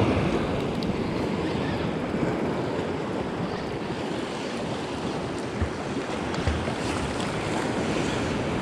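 Sea waves surging and breaking against rock ledges, a steady rushing surf, with wind buffeting the microphone.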